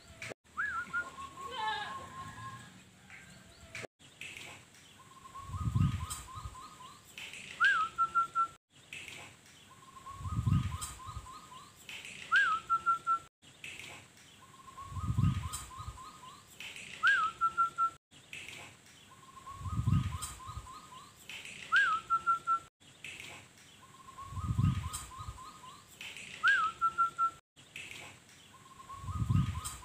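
Zebra dove (perkutut) singing, repeating the same cooing phrase about every five seconds: a run of quick rolling notes ending in a rising whistled note with a short trill. Each phrase comes with a low thud.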